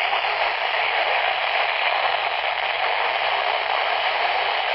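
Steady hiss of FM static from a weather-band radio receiver's speaker, with no broadcast voice coming through: the distant NOAA Weather Radio signal is too weak to be heard over the noise.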